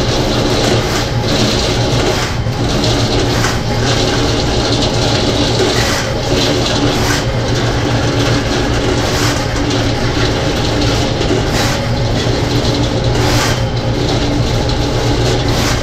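Electric drain-cleaning machine running steadily as its rotating cable is fed into a clogged floor drain, a constant motor hum with irregular knocks of the cable every second or two.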